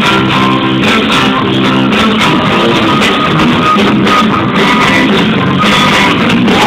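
Live rock band playing loudly, led by guitar chords struck in a steady rhythm.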